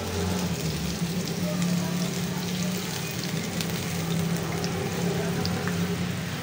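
Potato naan shallow-frying in hot ghee in a wok: a steady sizzle with many small crackles, over a steady low hum.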